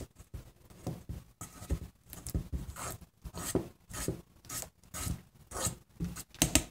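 A utensil scraping and rubbing softened butter in a bowl: short irregular strokes, about one or two a second.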